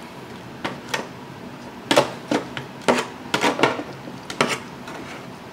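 Scattered light clicks and clinks of a utensil against cookware, irregular and about a dozen in all, as short ribs are lifted from a pressure cooker and set in an aluminum foil tray.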